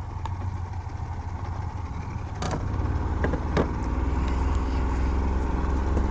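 Pontoon boat's outboard motor running steadily, getting louder about three and a half seconds in as it picks up. A couple of sharp knocks sound near the middle.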